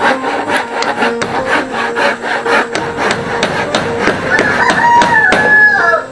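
Quick repeated hammer strikes, about four a second, on a wooden cage frame fitted with wire mesh. Over them, from about four seconds in, a rooster crows once: a long held call that falls at the end.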